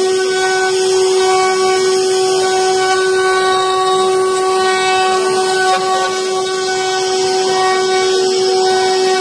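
Spindle of a 5-axis CNC wood carving machine running with a steady high-pitched whine and several evenly spaced overtones, its router bit cutting into the wooden workpiece with a rough hiss.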